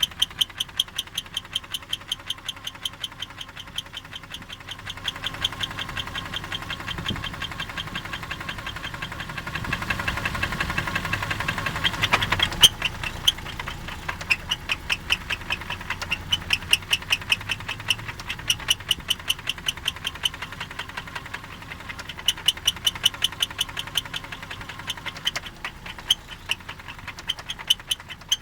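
Toyota 1G-FE straight-six engine running with a sharp, regular knock of about five a second. In the middle the engine note swells and the knocks run together, then it settles and the knock stands out clearly again.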